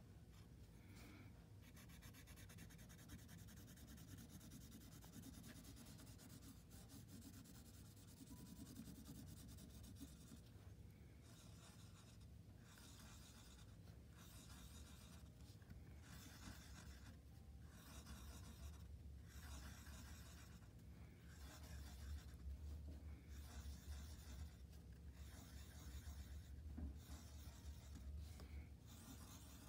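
Faint scratching of a pointed wooden stick etching lines and spirals through a layer of oil pastel on paper, in repeated short strokes of uneven length, over a low steady hum.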